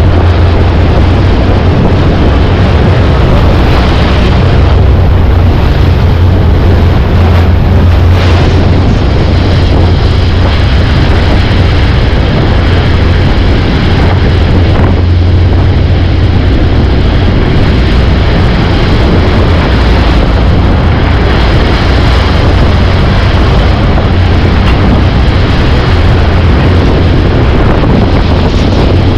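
Tour motorboat's engine running steadily under way, a constant low drone with rushing wind buffeting the microphone.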